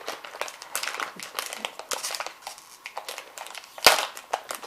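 Blind-bag packaging crinkling and crackling as it is handled and torn open, with one loud sharp snap about four seconds in.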